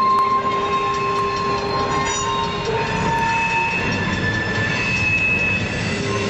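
Freight car wheels rolling slowly over rail joints and through a curve, with the flanges squealing in shifting high tones. A crossing bell rings about twice a second during the first two seconds.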